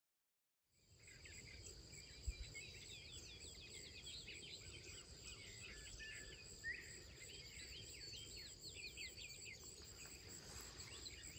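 Silence, then from about a second in a faint outdoor dawn ambience: many small birds chirping and singing over a steady high insect drone, with one soft low bump about two seconds in.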